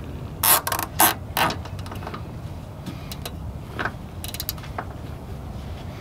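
Makita cordless drill run in three short bursts, drilling into the steel step of a backhoe. A few seconds later comes a brief run of ratcheting clicks, a zip tie being pulled tight.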